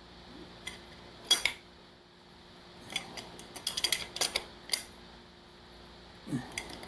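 Irregular sharp metallic taps and clinks of a hammer driving the rear main seal wear ring onto the crankshaft of a 7.3 Powerstroke diesel, several in quick succession in the middle.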